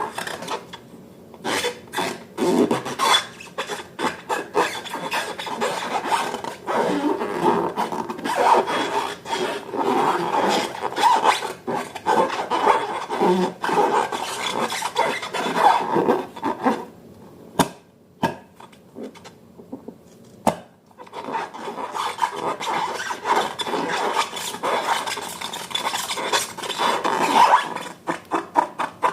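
Slime being worked by hand: a dense run of sticky squishing, crackling and rubbing that pauses briefly a little past halfway, then resumes.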